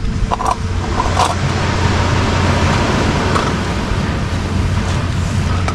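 Portable gas canister camping stove burner running with a steady hiss, with a few light clicks about half a second and a second in.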